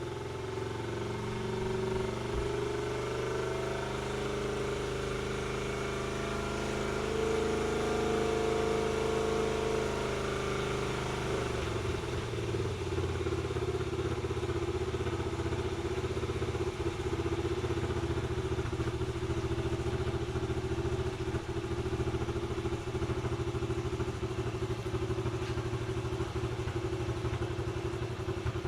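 1991 Honda Z50R's small four-stroke single-cylinder engine running steadily after a carburettor clean, sounding healthy; its note shifts and settles about twelve seconds in.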